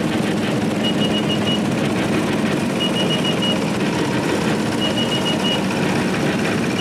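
Small engines of garden tractors, Case and Massey Ferguson machines closest, running steadily as they drive slowly past. A high electronic beep sounds in quick groups of about five, repeating about every two seconds.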